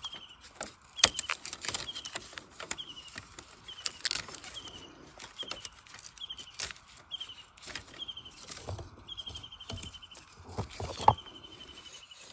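Dry bamboo stems and sheaths crackling and snapping as a gloved hand pushes into a bamboo clump, with sharp cracks about a second in and near the end. Behind it a bird repeats a short, high trilled call about once a second.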